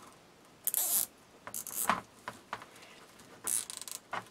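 Plastic deco mesh crinkling and rustling as it is gathered and fastened by hand onto a wire wreath frame: two short scratchy bursts, one about a second in and one near the end, with small clicks and rustles between.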